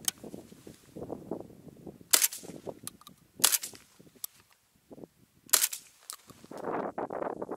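Three shots from a Saiga-12K semi-automatic 12-gauge shotgun firing buckshot, spaced a second or two apart.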